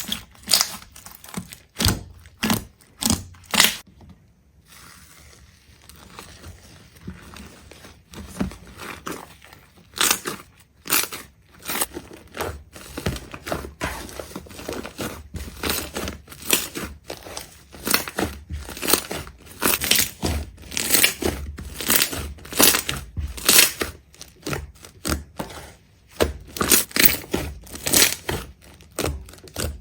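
Crisp crunching and crackling: a quick run of short, sharp strokes, several a second, with a quieter spell a few seconds in.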